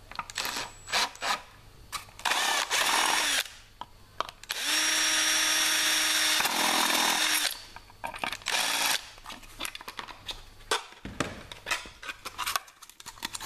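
Cordless drill with a step cutter boring holes through a vacuum-formed plastic case: a few short bursts, then one steady run of about three seconds near the middle with a constant motor whine, then another short burst. Scattered clicks and knocks follow near the end.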